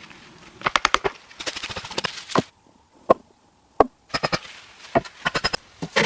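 Tool strikes on wood: quick clusters of sharp knocks, a short rough scraping stretch about two seconds in, then single knocks and more clusters.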